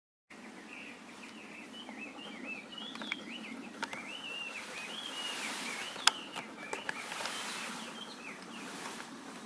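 Bird chirping and warbling in a quick run of rising and falling notes, busiest in the first half, over a steady outdoor hiss, with a few sharp clicks around the middle.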